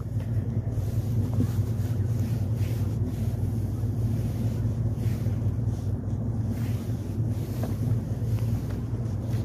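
Diesel freight locomotive's engine running with a steady low hum, wind gusting on the microphone over it.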